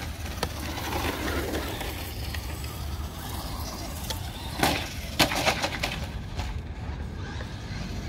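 Traxxas Slash 4X4 Ultimate RC truck running over grass, with a steady low rumble throughout. Sharp knocks come about four and a half seconds and five seconds in as the truck hits hard off a jump.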